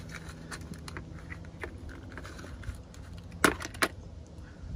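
Plastic retaining clips of a BMW Z4 door-sill kick plate popping loose as the plate is pried up with a thin plastic card: small clicks and scrapes, then two sharp snaps about three-quarters of the way in. A low steady hum runs underneath.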